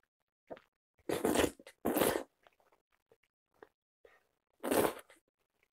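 Slurping of ulmyeon wheat noodles from a thick, starchy broth: three loud slurps, about a second in, about two seconds in and near the end, with faint chewing clicks between them.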